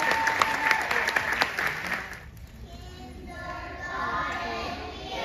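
Audience applauding, the clapping dying away about two seconds in; voices follow.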